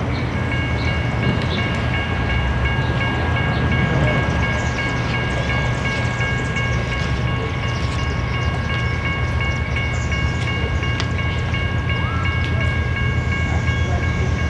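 Grade-crossing warning bell ringing rapidly, nearly three strokes a second, starting about half a second in, over the low rumble of an approaching train.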